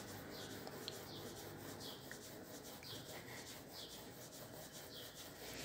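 Faint rubbing of a palm rolling a piece of soft cookie dough back and forth on a wooden board, about one stroke a second.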